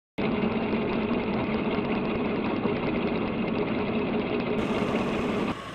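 A motor running steadily with a fast, even knock; it starts abruptly just after the start and cuts off shortly before the end.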